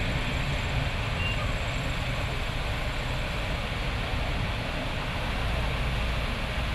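Steady street noise in heavy rain: an even hiss of rain and tyres on wet roads over a low rumble of traffic.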